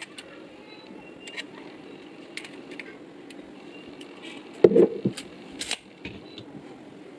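Handling noise as a plastic clock speaker and a steel tape measure are moved about: scattered small clicks and rubbing, then a thump about four and a half seconds in as the clock is set down on a wooden table, followed by a few sharp clicks.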